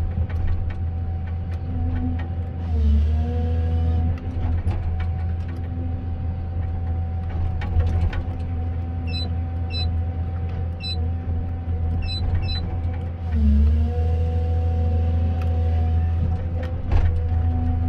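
Komatsu 931.1 harvester's diesel engine running steadily under hydraulic load, its note dipping briefly twice as the load changes. A few short, high electronic beeps come near the middle.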